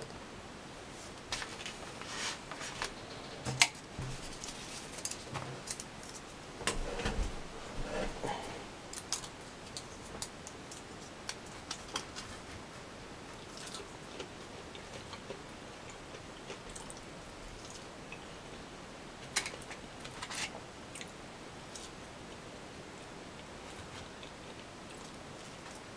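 Plastic fork and knife cutting and scraping food in a polystyrene takeaway box: scattered light clicks and scrapes, busiest in the first ten seconds and again about twenty seconds in.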